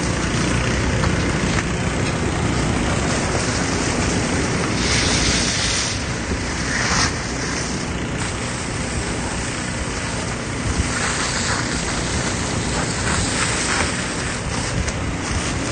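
Fire hoses spraying water onto a burning structure over the steady running of a pump engine, a constant rushing hiss with fire burning underneath. A louder burst of spray hiss comes about five seconds in.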